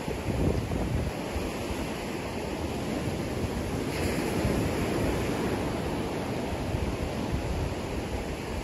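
Surf washing onto a sandy beach in a steady hiss, with wind buffeting the microphone in low gusts and a brighter wash of surf about four seconds in.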